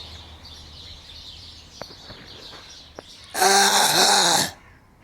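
Garden birds chirping and twittering faintly, with two small clicks. About three seconds in comes a loud, harsh rasping sound lasting just over a second.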